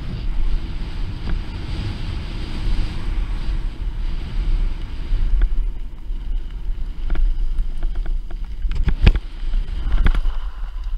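Mountain bike descending a dirt trail: wind buffeting the microphone over the rumble of tyres rolling on dirt, with scattered clicks and knocks from the bike over bumps. The strongest knock comes about nine seconds in.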